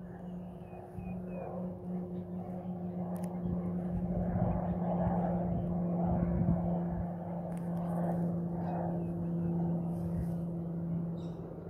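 A distant aircraft's engine droning steadily, with a constant hum under it, swelling about four seconds in and then holding. A few faint bird chirps come near the start.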